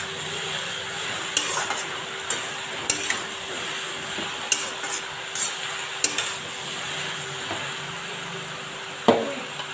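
A spatula stirring chopped taro in a karahi, with sharp metal clicks against the pan over a steady light sizzle of frying. There is one louder clank about nine seconds in.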